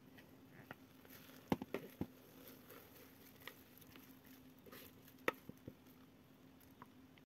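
Soft, sticky no-knead bread dough sliding from a bowl into a greased metal loaf pan: faint wet squishing with a few sharp taps, the loudest about a second and a half in and again about five seconds in, over a steady low hum.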